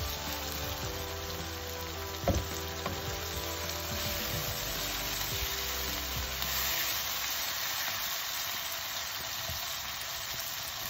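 Tomatoes, onion and sliced garlic sizzling in hot oil in a frying pan as a spatula stirs them, with a single knock about two seconds in.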